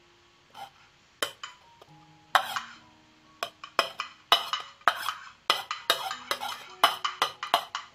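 Spoon scraping and tapping grated coconut off a plate into a steel mixer-grinder jar: a run of short, sharp strokes, sparse at first and then about two a second. Soft background music plays underneath.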